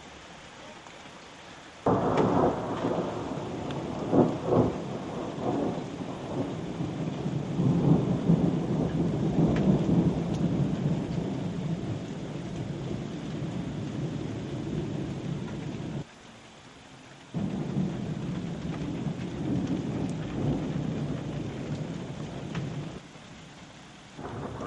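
Thunder rumbling with rain, in abruptly cut segments: the rumble starts suddenly about two seconds in, with a few sharp cracks around four seconds, drops out briefly around sixteen seconds, and falls away near the end.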